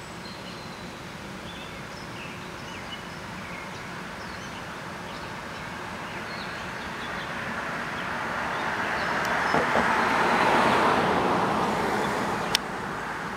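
A vehicle passing by: a steady rushing noise that grows over several seconds and fades away again, with birds chirping faintly before it and one sharp click near the end.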